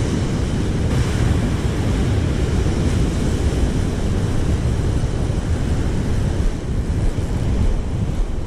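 Wind rumbling on the microphone over the steady wash of surf breaking on a beach.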